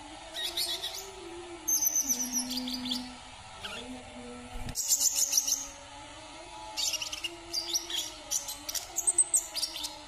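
Caged brown-throated sunbird (kolibri kelapa) singing: about four bursts of rapid, high, twittering chirps, the longest near the end, over a faint low steady tone.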